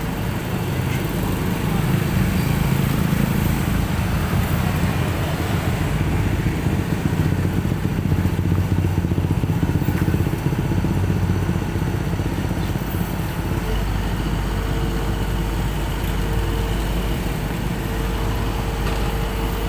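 Dump truck's diesel engine running steadily with a heavy low rumble, a little louder for several seconds in the first half, then settling into a steady low hum.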